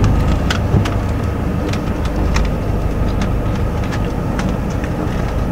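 Boat engine running with a steady low rumble, with scattered light clicks over it.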